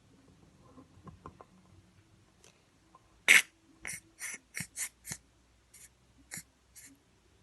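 Squeezable plastic bottle of glitter glue being squeezed, sputtering out about ten short, hissy spurts of air and glue, the first the loudest, as the bottle runs nearly empty.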